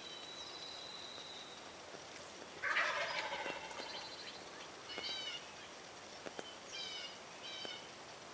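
A wild turkey gobbles once, a loud rapid rattling call about three seconds in. A small bird's short chirping calls follow a few times.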